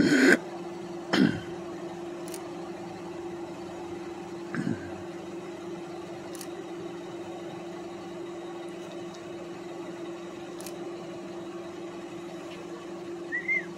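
Steady low mechanical hum that holds one tone throughout, with two short louder sounds near the start and a few faint clicks later.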